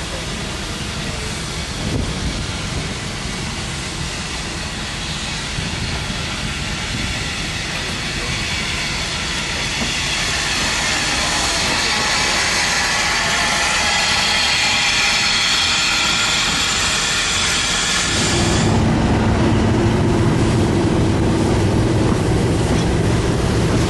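Steam hissing from a small steam locomotive close by, growing stronger about halfway through. About 18 seconds in it gives way abruptly to the steady low running noise of a railway carriage moving along the track.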